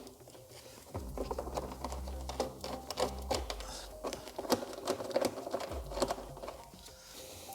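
A small power screwdriver or nut driver running in short spells as it undoes the 8 mm nuts holding a door speaker, with clicks and knocks of the tool and metal between runs. The longest run lasts about two seconds from about a second in, and a shorter one comes near the end.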